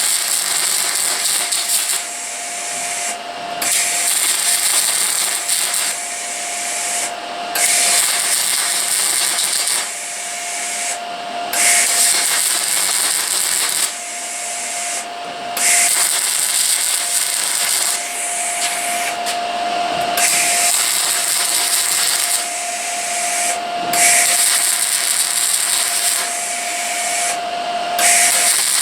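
Abrasive power tool running steadily and grinding metal in long passes that stop briefly about every four seconds as it is lifted off the work; the motor's steady whine carries on between passes.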